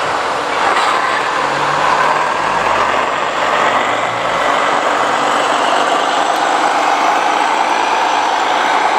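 Radio-controlled scale MAN tipper truck driving over sand, a steady mechanical running sound that holds the same level without breaks.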